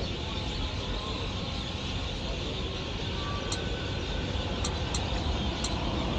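Steady low rumble of motor-vehicle noise with no clear rhythm, with a few faint short high ticks now and then.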